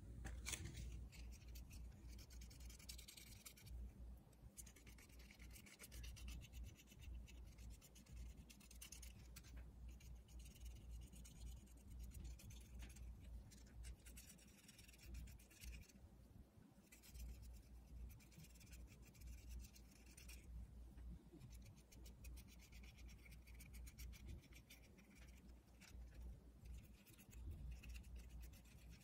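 Faint scratchy rubbing of a flat paintbrush working purple paint onto a paper-pulp egg-carton cup, in stretches of strokes a few seconds long with short pauses between.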